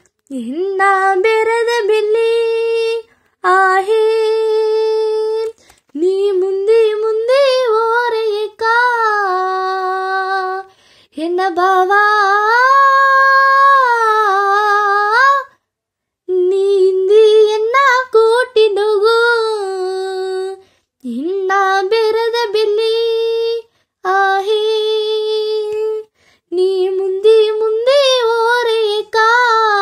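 A girl singing a Badaga song unaccompanied, in phrases a few seconds long with brief pauses for breath between them. The voice glides and ornaments between held notes.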